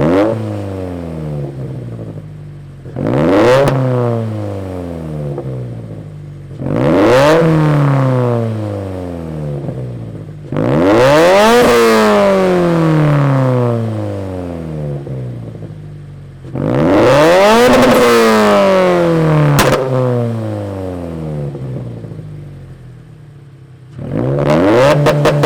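Turbocharged Toyota 86/Scion FR-S flat-four with a Tomei 80R titanium catback exhaust, free-revved while stationary. There are about six blips, each climbing quickly and dying away slowly; the later ones are held high for a second or two.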